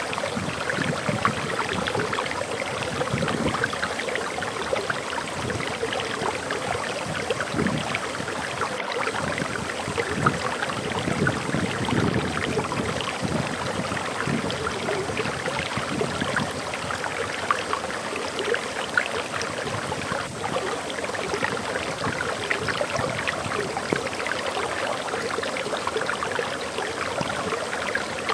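Water flowing over a waterfall: a steady, even rush of running water.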